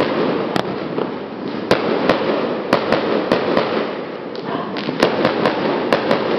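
Fireworks and firecrackers going off: a continuous dense crackling with about a dozen sharp bangs at irregular intervals.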